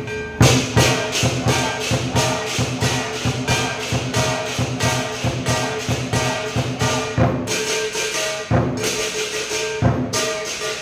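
Lion dance percussion ensemble playing: a big drum beaten under clashing cymbals and a gong, struck several times a second. The cymbal clashes come in about half a second in.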